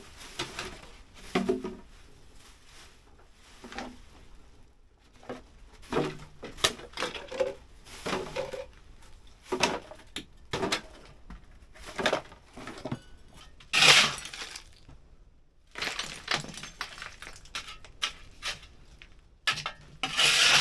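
Hard household junk being handled and cleared: a string of irregular knocks, clatters and clinks, with a louder crash about 14 seconds in and another near the end.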